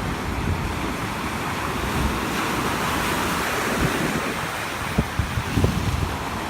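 Storm surf whipped up by a typhoon, breaking and washing in a swell that peaks mid-way, with strong wind buffeting the microphone in a few low thumps near the end.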